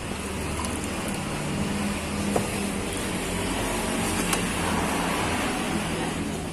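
A motor vehicle passing on the road, its engine and tyre noise swelling over several seconds and easing off near the end. A few light clicks sound over it.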